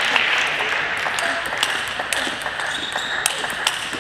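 Table tennis rally: the ball clicks sharply off the rackets and the table in quick, irregular succession.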